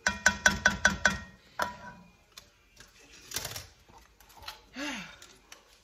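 Black slotted cooking spoon knocking against a metal pot while cauliflower rice is stirred: a quick run of about six ringing knocks in the first second, another about a second and a half in, then softer scraping.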